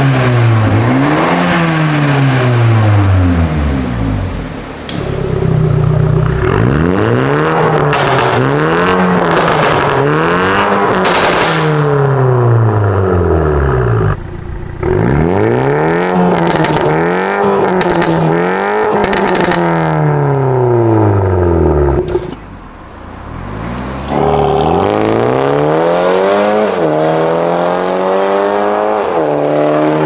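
BMW G20 330i's B48 turbocharged four-cylinder engine repeatedly revved while stationary, through an aftermarket valvetronic catback exhaust with catless downpipes. Each rev rises and falls in pitch, about one every second and a half, with a few short drops and one longer, higher rev near the end.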